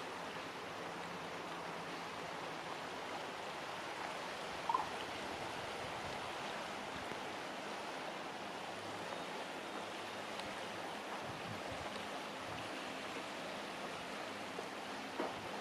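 Shallow spring creek running, a steady rushing of water. One short sharp sound breaks through about a third of the way in.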